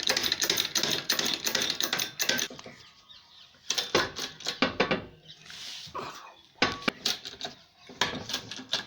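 Metal clicking and clattering as a hydraulic press is worked to push the shaft out of a ceiling fan stator. Rapid clicks come for the first couple of seconds, then scattered knocks with short pauses.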